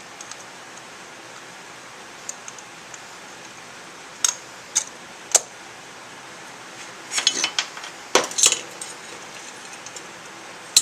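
Light metallic clinks and taps of small metal engine parts being handled and set in place on a motorcycle cylinder head, a few single clicks followed by a quicker cluster about seven to eight and a half seconds in.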